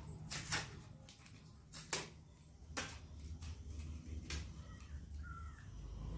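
Crinkling and clicking of a small cosmetic package, a kajal pack, being handled and unwrapped: a few sharp crackles at uneven intervals over a low steady hum.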